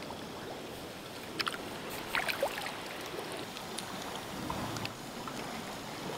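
Sea kayak paddle dipping and dripping on calm water: a few small plinks and splashes from about a second and a half to two and a half seconds in, over a faint steady hiss of the sea.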